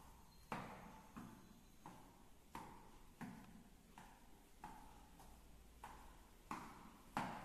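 A small ball slapping into a palm as it is tossed and caught one-handed, a sharp smack about every two-thirds of a second in a steady rhythm.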